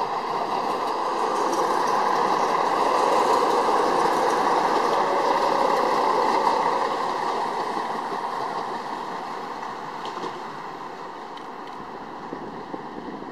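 Stadler Regio-Shuttle RS1 diesel railcar (DB class 650) running past close by, its engine and wheel noise a steady rush that swells to its loudest a few seconds in and then slowly fades as it moves away.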